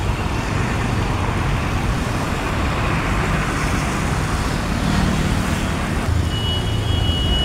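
Steady rushing of muddy floodwater flowing across a road and spilling over debris, with a low rumble of traffic underneath.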